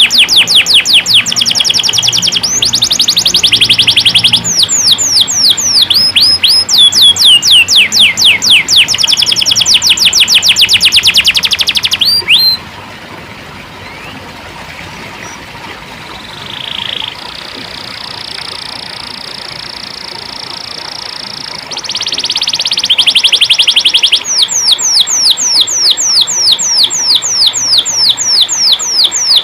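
Domestic canary singing: loud, fast trills of repeated downward-sweeping notes, dropping about halfway to a quieter stretch of long held high notes before the fast trills start again.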